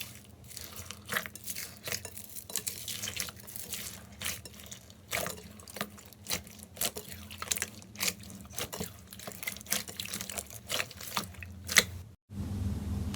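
Slime being squeezed and poked by hand, giving many irregular wet clicks and pops. It cuts off about 12 seconds in, followed by a steady low hum.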